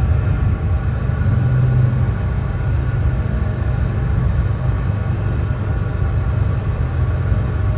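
Brown noise: a steady, unbroken hiss that is deep and heavy in the bass and thins out toward the treble.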